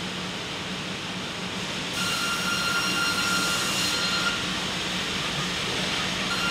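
Sawmill machinery running: a steady mechanical din over a constant low hum. About two seconds in it gets louder, as a steady high whine and a hiss come in.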